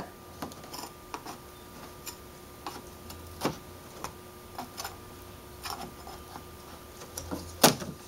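Stiff putty knife working under the top strip of a Saturn S-series polymer outer door skin, giving scattered clicks and scrapes as the strip is prised loose. A sharper snap comes near the end as the strip comes free.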